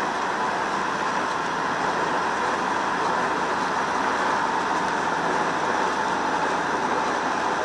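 Sweet corn harvesting machinery running with a steady, unbroken mechanical noise.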